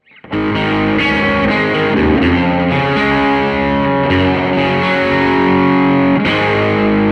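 Intro music of distorted electric guitar playing chords, starting a moment in.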